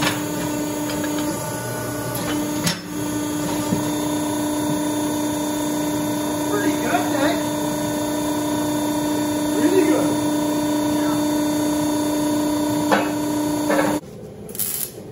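Steady electric hum from shop machinery with a few light metal clinks. The hum cuts off suddenly near the end.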